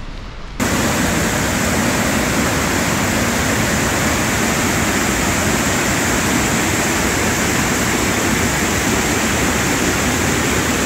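Steady rush of fast-flowing water, loud and even, cutting in abruptly about half a second in.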